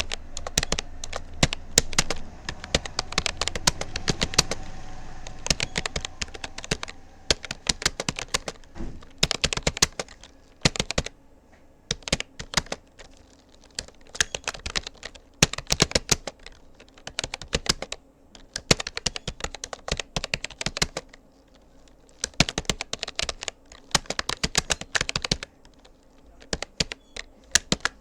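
Typing on a Rapoo computer keyboard: quick runs of key clicks in bursts of a second or two, with short pauses between words.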